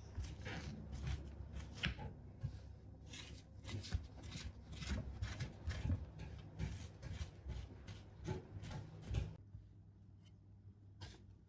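Metal spoon scraping the pith and seeds out of a halved bitter melon (goya), in short strokes about three a second. The strokes stop well before the end, and a single knife cut taps the wooden cutting board near the end.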